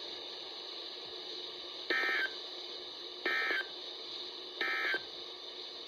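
NOAA Weather Radio EAS end-of-message signal: three short bursts of SAME digital data tones, about a second and a half apart, over steady radio hiss. They mark the end of the alert broadcast.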